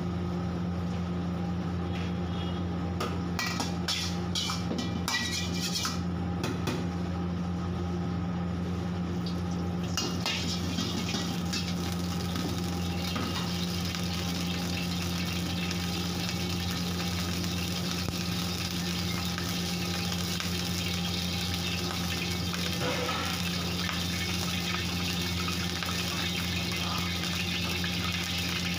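Wok heating over a burner against a steady low hum. A few light metal clicks come in the first seconds, then about ten seconds in oil goes into the hot wok and sizzles with a steady hiss.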